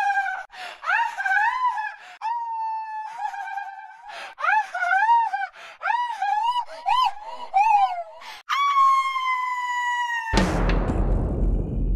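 High swooping pitched sounds in short arching phrases, ending in one long held tone that slides slightly down. This is cut off near the end by a heavy crash that leaves a low rumble.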